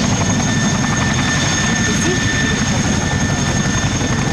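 Aircraft engines running steadily: a low, rapidly pulsing rumble with a steady high whine above it.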